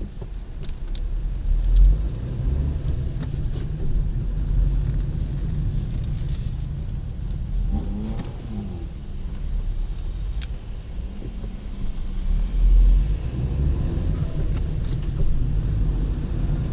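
Kia Rio QB driving, with steady engine and road noise and the engine pitch rising and falling. Near the end there is a dull knock at a gear change, the fault the owner is chasing.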